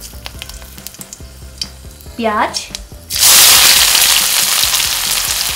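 Dried red chillies crackling faintly in hot oil in a kadhai, then about three seconds in a sudden loud sizzle as chopped onions are dropped into the oil, the hiss staying strong and easing only slightly.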